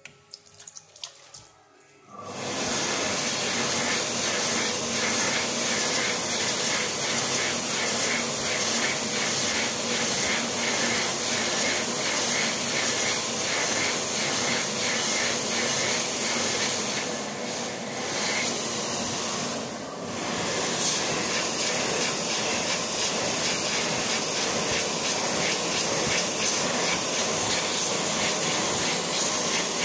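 ATC Premium Blade hand dryer starting up about two seconds in and blowing steadily at full power, its air noise dipping briefly twice near the middle.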